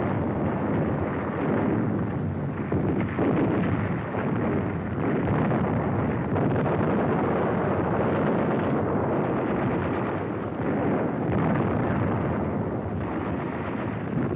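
Battle sounds of explosions and gunfire, a continuous din with no pause.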